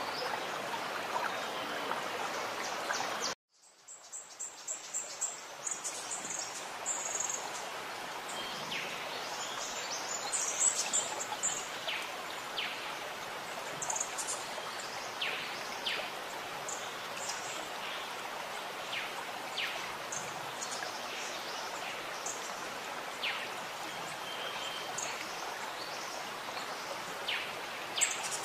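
Steady rushing like running water, with birds chirping now and then throughout. The sound cuts out abruptly about three seconds in and swells back over the next couple of seconds.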